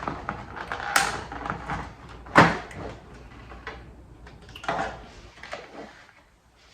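Plastic takeout sushi containers being moved and handled on a table: a few sharp clicks and knocks with softer rustling, the loudest knock about two and a half seconds in.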